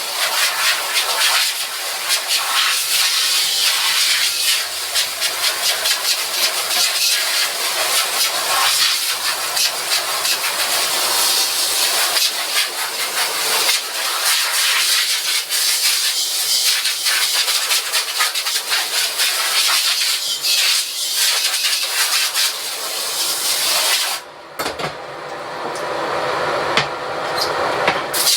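Battery-powered mobile spray washer jetting water onto a screen-printing screen, a steady hiss of spray washing it out. The spray stops about 24 seconds in and starts again just before the end.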